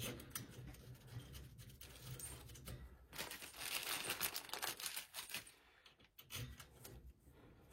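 Faint crinkling and scraping handling noises with small clicks, louder for a couple of seconds about three seconds in.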